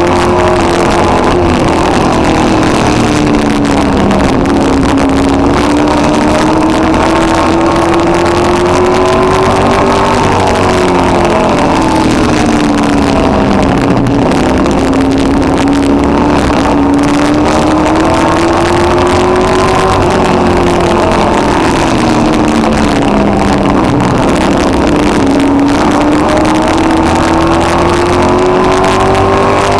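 Street stock race car's engine at racing speed, heard from inside the car. Its pitch climbs for several seconds and then drops, in a cycle of about ten seconds: accelerating down each straight and easing off for the turns, lap after lap.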